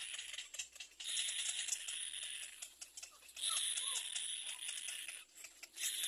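Little black cormorant nestlings begging with dry, rattling calls, in bursts of one to two seconds with short breaks between them.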